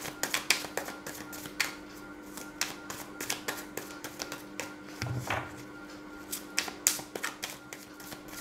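Tarot cards being shuffled by hand: irregular quick taps and flicks of the cards against each other, over faint steady background music.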